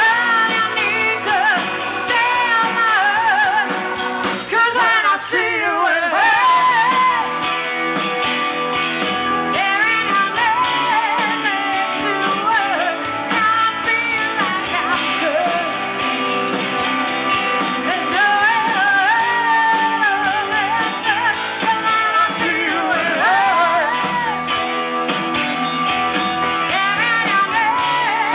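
Live rock band playing loudly: electric guitars, bass, drums and keyboards, with a woman singing over them.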